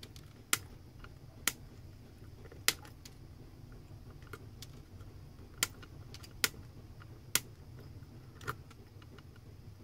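Flush-cutting pliers snipping the excess leads off LEDs on a circuit board: about seven sharp snips, irregularly spaced about a second apart.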